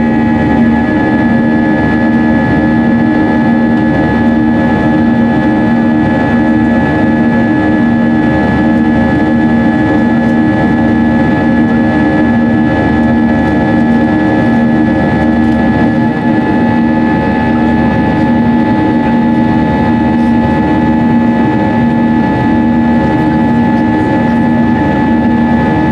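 Airbus A320 engines and airflow heard from inside the cabin: a loud, steady drone with a constant high whine and a low tone that wavers in a regular pulse.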